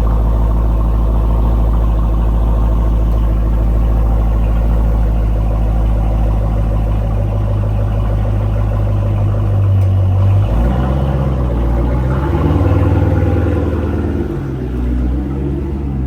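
Jeep Grand Cherokee SRT8's 6.4-litre HEMI V8 running through a modified, non-stock exhaust. It idles steadily for about ten seconds, then the engine speed rises and falls a few times in light throttle blips.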